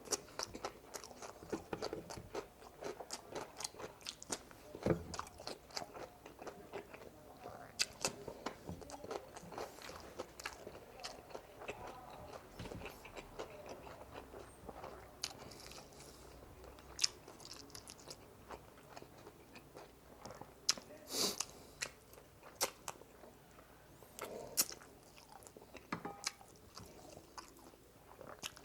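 Close-miked chewing and biting while eating spicy frog legs: many sharp crunchy clicks and wet mouth smacks, packed tightly for about the first ten seconds and sparser after that.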